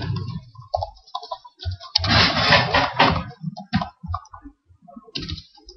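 Typing on a computer keyboard: scattered separate keystrokes, with a louder, denser stretch about two seconds in that lasts about a second.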